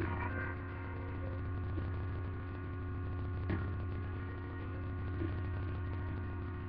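Steady low electrical mains hum with a few fainter steady tones above it, and a single short click about halfway through.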